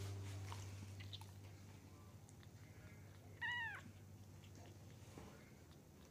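A day-old kitten mewing once, a short high cry a little past halfway that rises and falls in pitch.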